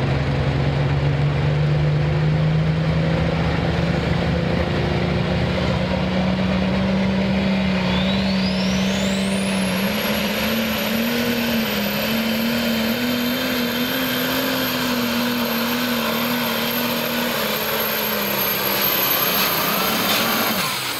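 Super Stock pulling tractor's turbocharged diesel engine at full power under load, its note climbing slowly, then wavering at high revs. A high turbocharger whine sweeps up sharply about eight seconds in and holds steady until the sound cuts off near the end.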